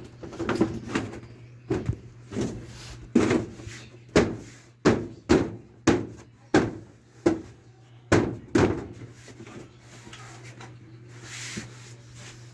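Hammer blows on wood: about a dozen sharp knocks spaced half a second to a second apart, stopping after about nine seconds, over a steady low hum.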